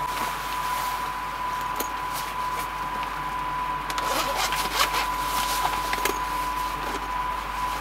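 Plastic packaging crinkling and crackling in the hands, in bursts of short crackles, over a steady hiss of heavy rain on the van and a thin steady whine.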